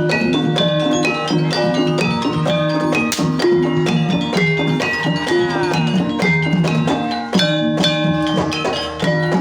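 Banyumasan gamelan music for tayub: an ensemble of struck pitched percussion and drum playing many quick notes over a steady low pitch.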